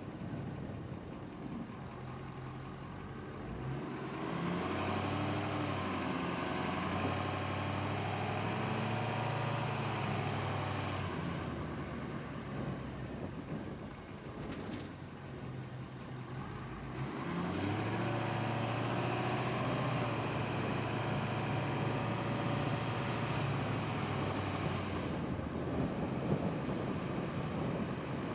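Car engine and road noise while driving: the engine note swells twice as the car pulls away and picks up speed, easing off in between. A single sharp click about halfway through.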